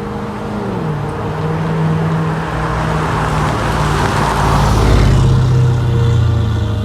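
Chevrolet SS's LS3 V8, fitted with a cold air intake and secondary cat delete, running as the car is driven. Its note drops in pitch about a second in, then holds steady while it grows louder to a peak a little past the middle and eases slightly near the end.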